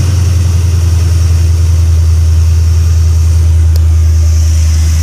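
454 big-block V8 engine with headers idling steadily, a little fast because the choke is not fully open.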